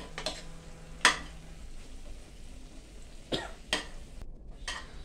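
Steel spoon stirring a thick chicken curry in a metal pan, scraping and knocking against its sides in a handful of sharp clinks, the loudest about a second in.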